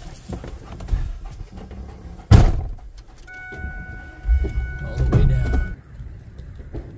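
Inside a Ford pickup's cab: a sharp knock about two seconds in, then a steady warning tone as the engine is cranked and started. The tone and the low engine sound stop together near the end.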